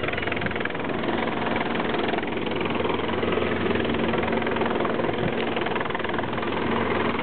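Helicopter hovering low, its rotor and engines making a steady drone with a fast, even pulse.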